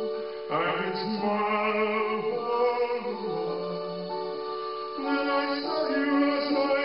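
A man singing long, held notes over an electronic keyboard; a new phrase starts about half a second in and another near the five-second mark.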